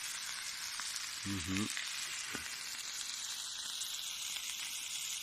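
Ribeye steak sizzling steadily as it cooks over a campfire, a continuous high frying hiss, nearly done.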